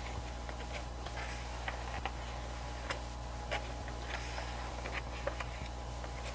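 Glossy pages of a photobook being turned and handled by hand: soft paper rustles and scattered light ticks at irregular moments, over a steady low background hum.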